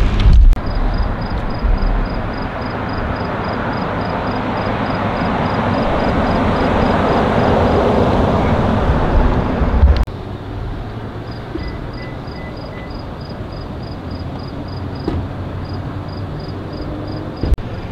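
A police SUV driving past, its noise swelling to a peak about eight seconds in, then cutting off abruptly to a quieter steady background.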